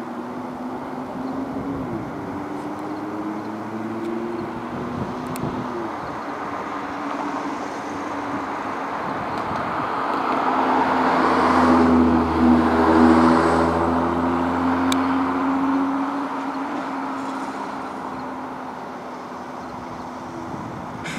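Motor vehicle engines running with road noise. The sound swells to a peak about halfway through as a vehicle passes close, then fades back to a steady hum.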